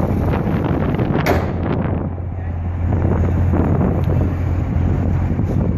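2016 Chevrolet Corvette Stingray's 6.2-litre V8 idling with a steady low hum, with wind buffeting the microphone. There is one sharp click about a second in.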